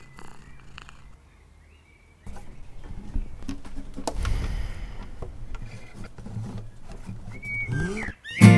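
Acoustic guitar struck with a loud strum near the end, after several seconds of soft scattered sounds and a low rumble.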